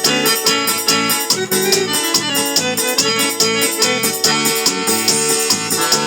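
Upbeat instrumental forró (arrasta-pé) music: an accordion-like melody over a fast, steady beat with a shaker.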